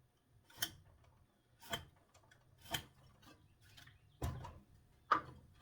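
Light wooden knocks and taps of boards and a carpenter's square being handled while a straight line is marked, about one a second, with a heavier thump a little past four seconds in and a sharper tap near the end.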